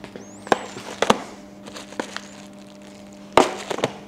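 Motorcycle parts and packaging being handled while unpacking a shipping crate: a few sharp, separate knocks and clatters, the loudest about three and a half seconds in.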